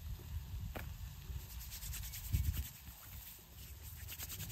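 Rubbing and rustling handling sounds with a few scattered light clicks, over an uneven low rumble.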